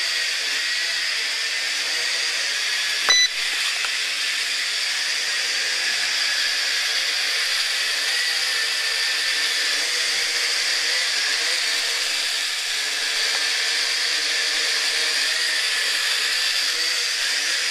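Sharper Image DX-4 quadcopter hovering, its four motors and propellers giving a steady high-pitched whine. A single sharp click with a brief tone comes about three seconds in.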